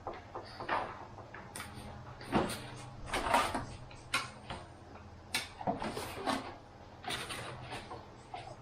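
Light plastic clicks, knocks and scrapes of 3D-printed model-aircraft tail parts being handled and pushed together on a workbench, as the elevator is worked onto its tight-fitting hinge rod. The knocks come irregularly, the loudest two about two and a half and three and a half seconds in.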